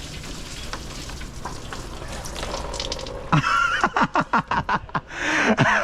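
Engine coolant running out of the Jeep radiator, splashing steadily. About halfway in it breaks into a quick run of loud short glugs, then a louder rush near the end.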